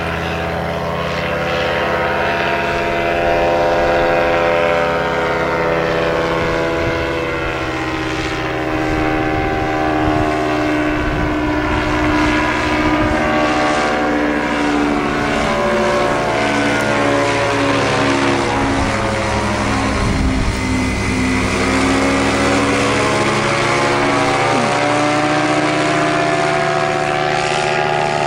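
Paramotor engine and propeller droning as a powered paraglider flies close overhead. Its pitch sinks slowly to a low about twenty seconds in, then climbs again.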